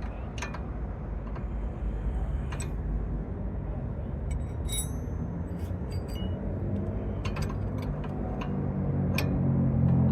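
Scattered metallic clinks and ticks of tools and hardware on a sway bar end link being worked by hand, one ringing briefly, over a steady low rumble. A low hum builds near the end.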